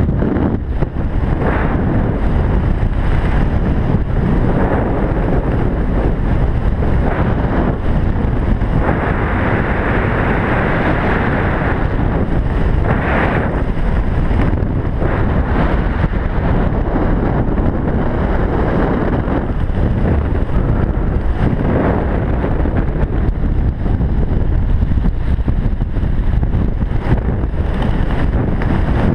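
Wind rushing over a helmet camera's microphone during a parachute descent under canopy: a loud, steady buffeting with a few stronger gusts.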